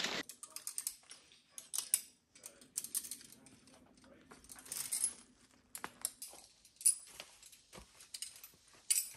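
Climbing hardware, metal carabiners and quickdraws, clinking and jingling lightly in scattered taps as it is handled.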